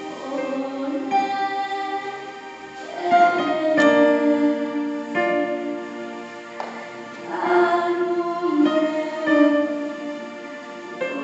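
A slow sung lament, a solo voice holding long wavering notes over keyboard accompaniment.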